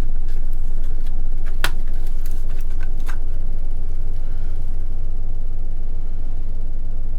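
Steady low hum with a few light clicks and taps in the first half, from parts being handled on the workbench.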